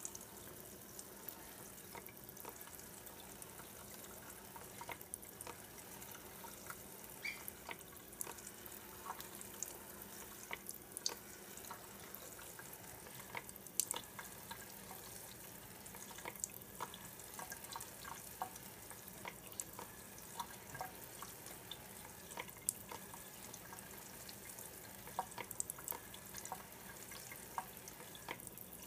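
A thin stream of tap water splashing faintly onto a metal mesh vent filter in a sink, with irregular ticks of drops throughout.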